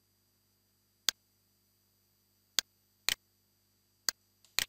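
Computer keyboard keys pressed one at a time, five or six separate sharp clicks spaced about a second apart, the last two close together.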